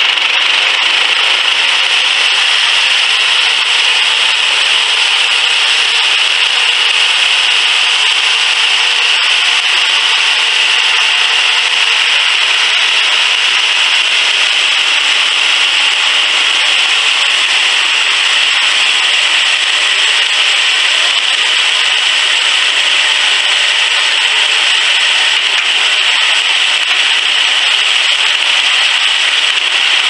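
Homemade bandsaw sawmill cutting lengthwise through a log. The engine-driven band blade makes a steady, loud, hissing sawing sound as the head moves along.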